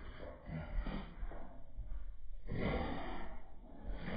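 Breathy huffs and snorts in several bursts of up to about a second each, the loudest about two and a half seconds in.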